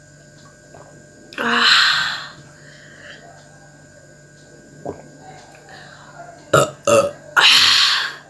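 A woman burping loudly twice, once about a second in and again near the end, after gulping chilled Sprite. Two or three short sharp sounds come just before the second burp.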